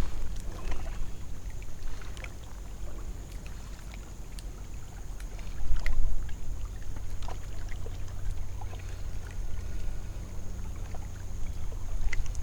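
Water lapping against a kayak hull, with small scattered ticks and splashes over a low rumble of wind on the microphone, which swells briefly about six seconds in.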